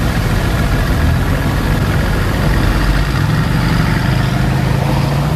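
Car engines idling in a traffic queue, heard through an open car window: a steady low engine sound that becomes a firmer, more even hum about three seconds in.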